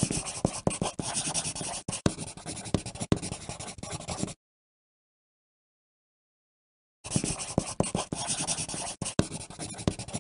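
Pencil writing on paper: a run of quick scratchy strokes with small taps of the lead. The writing stops dead for nearly three seconds in the middle, then picks up again.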